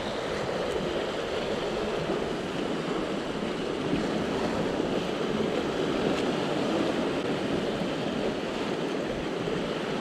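Sea swell washing around shoreline rocks: a steady rush of surf with no distinct breaks.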